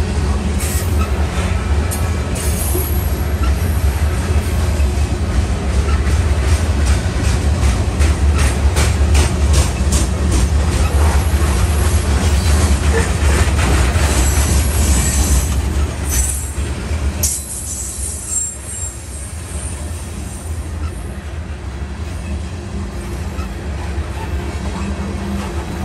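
CSX grain train's freight cars rolling past, with a heavy rumble, rapid clickety-clack of wheels over rail joints and some wheel squeal. The rumble drops off suddenly about two-thirds of the way through.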